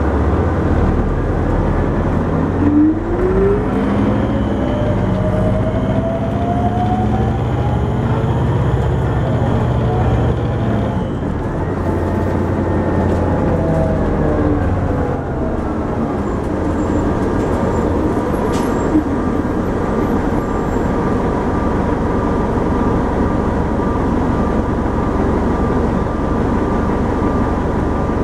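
Cabin sound of a 2000 New Flyer D60LF articulated diesel bus riding along: steady engine and road rumble. A whine rises in pitch from about three seconds in, and another rising whine follows around twelve seconds.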